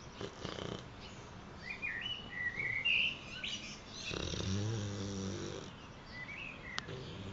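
Boxer dog snoring: a short breathy snore near the start, then a longer, low, pitched snore about four seconds in that lasts over a second. Birds chirp in between.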